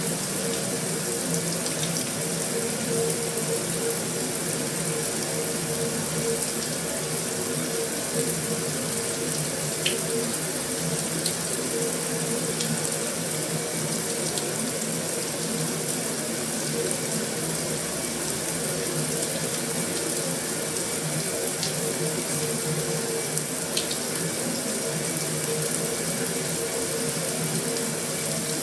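Heavy rain drumming steadily on a metal roof: a dense, even hiss with a few sharper drop ticks here and there and a faint steady hum underneath.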